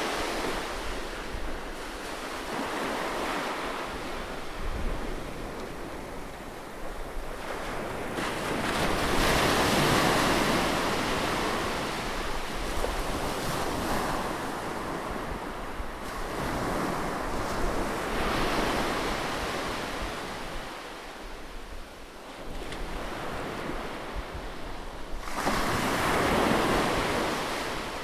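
Sea waves breaking close by on a shore, swelling and washing back in slow surges about every seven to eight seconds, with some wind rumble on the microphone.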